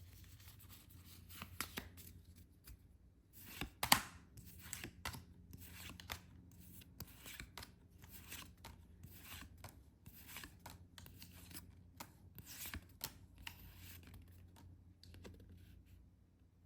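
Packaging being handled and opened by hand: a faint, irregular run of short rustles, scrapes and tears, with one sharp snap about four seconds in.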